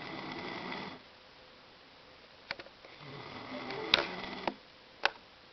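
Snoring: one rasping breath to begin with, a quiet gap, then a second, longer snore from about three seconds in. A few sharp clicks fall between and after the snores.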